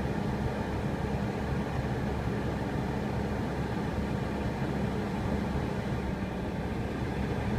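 Suzuki Kei's heater blower fan motor running with a steady low buzz, the sign of a failing motor.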